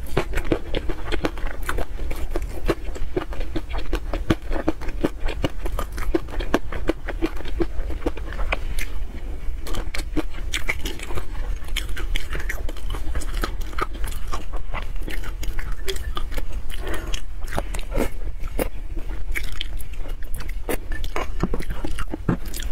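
Close-miked chewing and wet mouth sounds of eating peanut sauce: a steady run of quick, irregular clicks and smacks.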